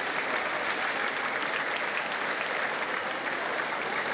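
Crowd applauding steadily, a dense, even patter of many hands clapping.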